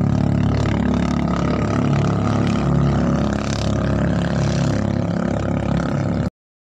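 A small boat engine running steadily at speed. It cuts off suddenly near the end.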